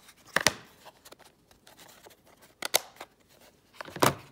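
Small plastic screwdriver-bit case being handled, with sharp plastic clicks about half a second in, again past the middle and once more near the end.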